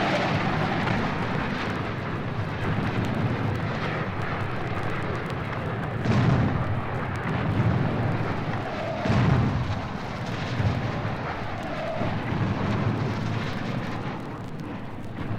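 Sound-effect recording of a disaster: a steady rumbling roar with deep low thuds every second or two from about six seconds in, and faint record-surface clicks.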